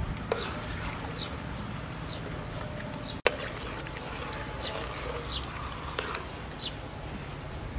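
Birds chirping in short, high, falling calls every second or so over a steady low rumble, with one sharp click about three seconds in.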